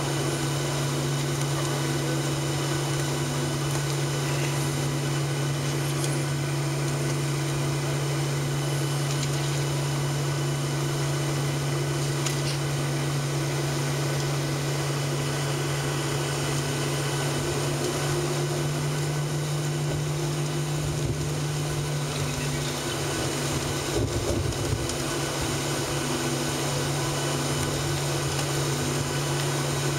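Steady cabin noise of a Boeing 737-700 taxiing, heard from a seat over the wing: the CFM56-7 engines running at idle with a constant hum and fan-like whir, plus the air-conditioning. A low rumble and a couple of light bumps come about 21 to 25 seconds in.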